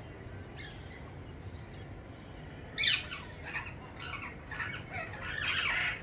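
Rose-ringed parakeets squawking: a loud harsh screech about three seconds in, then a quick string of shorter screeches, the last one drawn out near the end.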